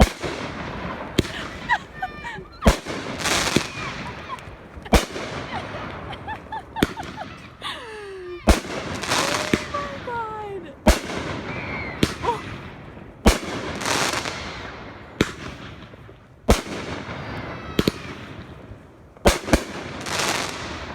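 Fireworks display: sharp bangs of bursting shells about every one to two seconds, irregularly spaced, with crackling in between.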